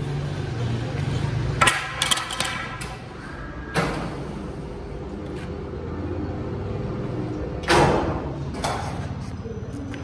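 Steady low hum of sawmill machinery, with a scattering of sharp knocks and clatters from the crane-hung stack of sawn timber being handled. The loudest knocks come a little before the end.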